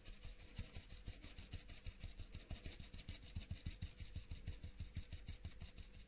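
Mesh sieve shaken quickly side to side over a mixing bowl, sifting flour, cocoa powder and salt: a faint, fast, even rattle of short strokes, several a second.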